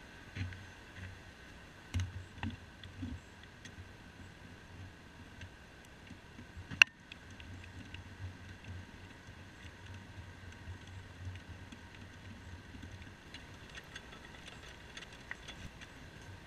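Metal clicks and rattles from hitching a utility trailer to a pickup's ball hitch: the coupler, swivel tongue jack and safety chain knocking, with one sharp metallic clank about seven seconds in. A faint low hum lies underneath.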